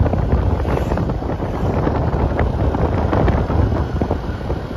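Wind buffeting the microphone of a moving motorbike, a steady low rumbling rush of air.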